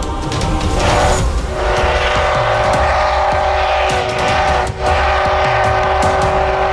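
Steam whistle of the DT668 steam locomotive, sounding a long, loud chord-like blast that breaks briefly near five seconds in and then sounds again.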